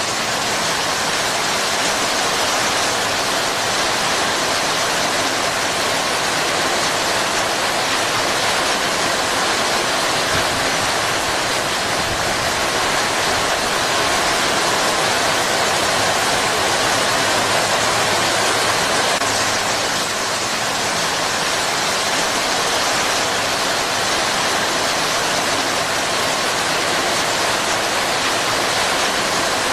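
Heavy rain falling steadily on palm leaves, an even hiss with no breaks.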